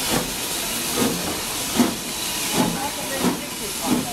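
Hunslet Austerity 0-6-0 saddle tank steam locomotive working hard with a train of Mk1 coaches, heard from a carriage: regular exhaust beats a little over one a second over a steady hiss.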